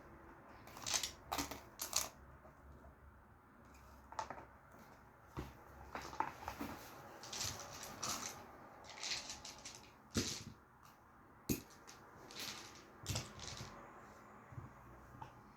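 A game box's cardboard and paper contents being handled: irregular short rustles, taps and clicks, about one a second.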